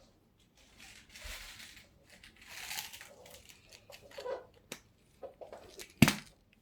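Rustling and crinkling handling noise, as of a small parts packet being rummaged and opened, with a few light clicks and one sharp knock about six seconds in.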